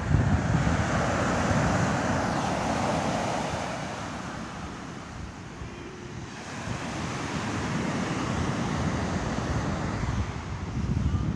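Wind buffeting the microphone over the wash of small waves breaking on a sandy beach, easing off briefly in the middle.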